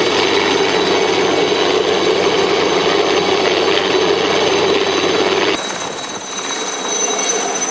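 Helicopter in flight, its turbine and rotor running loud and steady with a rapid pulsing chop. About five and a half seconds in the sound abruptly drops and thins, losing its low rumble, while a faint high whine carries on.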